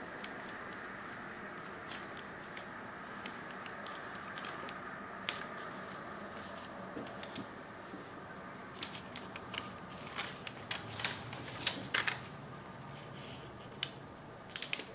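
A sheet of origami paper being handled and folded: scattered crisp crinkles and clicks as creases are pressed and the sheet is collapsed along its crease lines, busiest near the end, over a steady background hiss.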